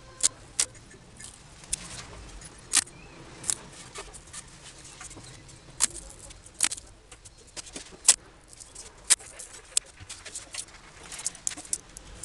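Masking tape being pulled off its roll and pressed down along a primed motorcycle fuel tank: an irregular string of sharp crackles and clicks.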